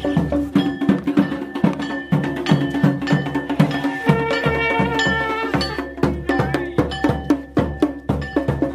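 Live folk procession music: a barrel-shaped hand drum beaten in a quick, steady rhythm, with a wind instrument holding a note about halfway through.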